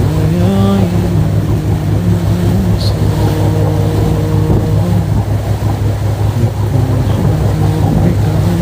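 A steady, loud white-noise track, heaviest in the low end like a rumble. Over it a single reciting voice holds long drawn-out notes with slow rises and falls in pitch, typical of the lengthened vowels of Quran recitation.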